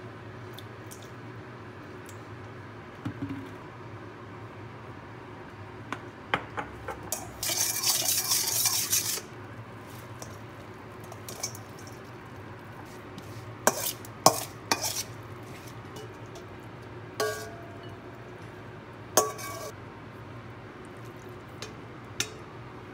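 A spoon clinking and scraping against a stainless-steel mixing bowl as sauce is stirred and vegetable and bean-curd slivers are tossed, with a few sharp metallic knocks that ring briefly and one louder noisy burst lasting over a second about eight seconds in.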